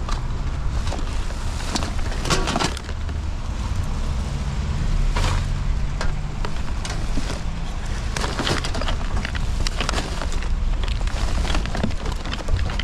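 Rummaging through curbside garbage: irregular rustles, clicks and clatters of items being handled, over a steady low rumble.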